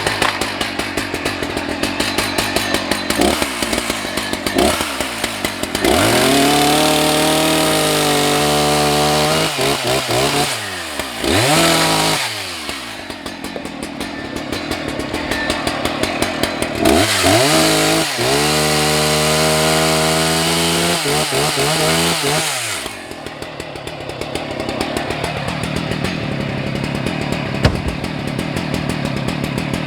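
Husqvarna 181 SE two-stroke chainsaw running: idling with a regular beat, revved up to high speed twice for several seconds each time, then settling back to idle near the end.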